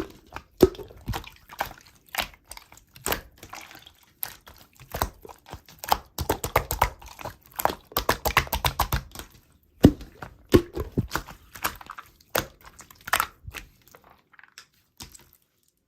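Slime being squeezed and worked by hand: a run of sticky clicks, crackles and small wet pops and squishes, densest in the middle and dying away near the end.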